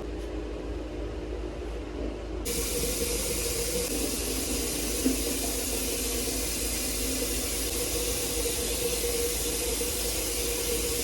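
A steady, even hiss starts suddenly about two and a half seconds in and cuts off sharply at the end, over a constant low hum with a few steady tones.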